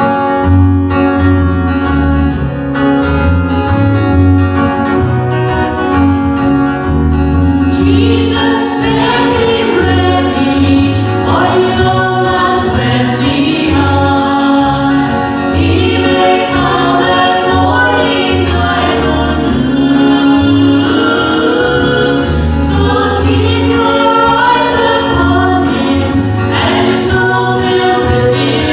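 A small gospel singing group sings a hymn in parts to a strummed guitar and bass accompaniment. The voices come in about eight seconds in, after an instrumental introduction.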